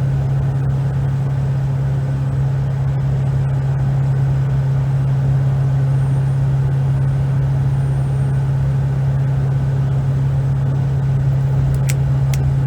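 Cab noise of a 7.3 L Powerstroke V8 turbo-diesel with a Borg Warner S300-series turbo and 4-inch Magnaflow exhaust, cruising under a light tow load: a steady drone with a strong low hum. Two finger snaps, about half a second apart, near the end.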